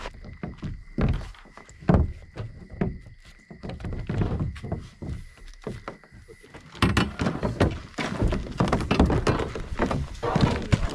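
Hunting gear being handled and unloaded at an enclosed cargo trailer: footsteps and repeated hollow thunks of gear knocking and being set down, with denser rustling and handling noise from about seven seconds in.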